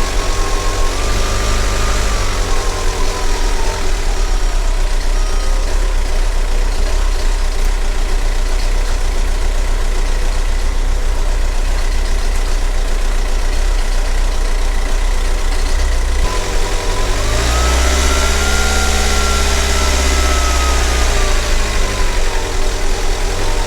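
Volkswagen New Beetle's 1.9 L ALH TDI four-cylinder diesel idling, then revved once near the end, the pitch rising and falling back over about four seconds.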